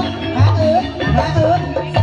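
Live gamelan music accompanying an ebeg trance-horse dance, with low drum and gong-like notes falling about twice a second under short repeating melodic figures.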